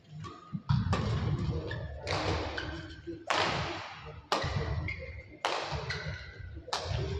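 Badminton rally in an indoor hall: sharp racket strikes on the shuttlecock about once a second, seven in all, each echoing, with brief shoe squeaks on the court between them.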